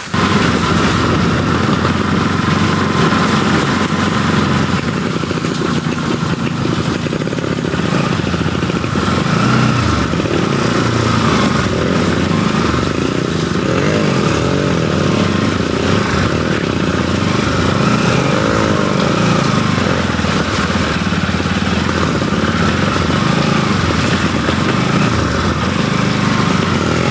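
Motorcycle engine running as the bike is ridden over a rough, muddy dirt trail, its note rising and falling with the throttle.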